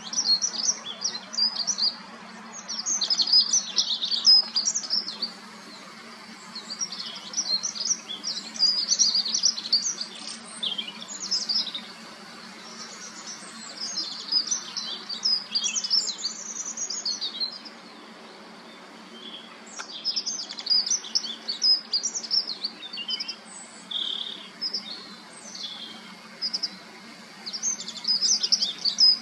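Dunnock singing: a series of fast, high, jingling warbles, each phrase lasting two to three seconds, repeated after short pauses. A faint steady low hum sits underneath.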